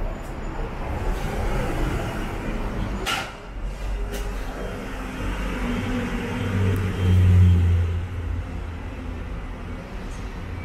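Ride noise aboard a Hong Kong double-decker tram with road traffic around it: a steady rumble with a sharp click about three seconds in. A loud low engine drone swells and fades around seven to eight seconds in.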